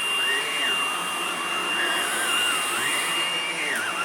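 Hoover Blade cordless stick vacuum running on carpet: a steady high motor whine with a second tone that wavers up and down.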